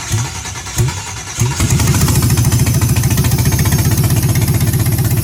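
5.3L LS V8 on an engine run stand cranking on its starter in slow, spaced strokes, then catching about a second and a half in and settling into a steady fast-pulsing run. It runs rough, which the owner puts down to two unplugged injectors and a broken coil pack.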